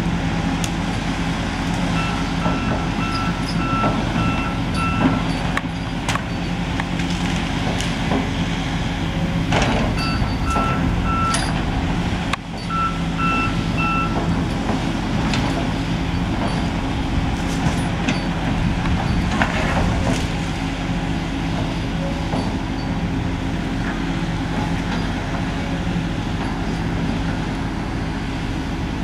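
Volvo crawler excavator's diesel engine running steadily under work while it tears down trees. Its travel alarm beeps in three short runs, and there are occasional sharp cracks and knocks.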